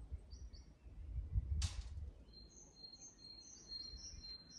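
Birdsong: a high, steady whistle with a run of short chirps over it at about two a second, starting about halfway, after a couple of chirps near the start. Under it a low rumble, loudest around the middle, and a single sharp click about halfway through.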